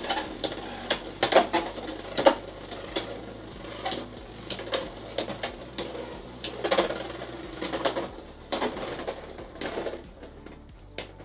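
Two Beyblade X spinning tops whirring and rattling in a plastic stadium, with repeated sharp, irregular clacks as they collide. The clatter thins out and gets quieter near the end as the tops lose spin in a stamina finish.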